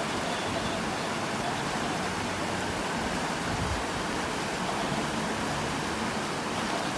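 Steady rush of a fast, shallow mountain river over rocks, with the faint hum of a 4x4's engine under it and a brief low thump about halfway through.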